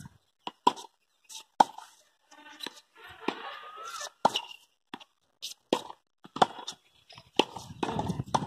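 Tennis balls struck with a racket and bouncing on a hard court: a run of sharp pops, about one a second.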